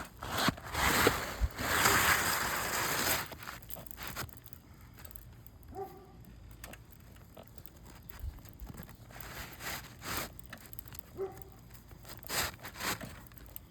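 Asphalt roof shingle being slid out from under the course above, a gritty scraping and rustling for about three seconds, followed by scattered light clicks and taps of handling on the roof.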